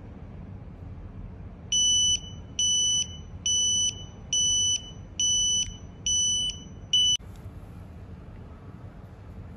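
Wireless barbecue meat thermometer's base unit sounding its temperature alarm: a run of seven high-pitched electronic beeps, a little under one a second, signalling that a probe has reached its preset temperature. The last beep is cut short about seven seconds in.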